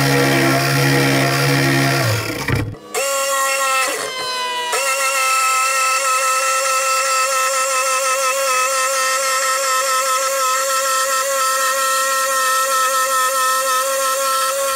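Electric jigsaw running steadily with a whining motor. After a short break near the three-second mark, its pitch slides down briefly and then holds steady for the rest.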